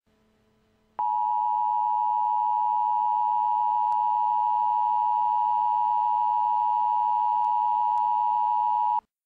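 Emergency alert attention tone: one steady, loud tone near 1 kHz. It starts about a second in, holds for about eight seconds and then cuts off sharply, marking the start of a weather warning broadcast.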